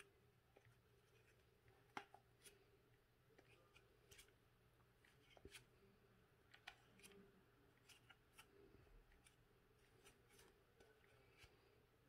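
Faint rustling of a paper towel and light, irregular clicks and scrapes as it wipes dust off the plastic fan impeller of a Braun Satin Hair 7 hair dryer.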